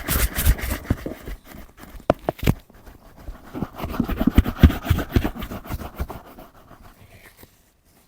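Brush scrubbing a leather boot in quick back-and-forth strokes with sharp scraping clicks, dying away near the end.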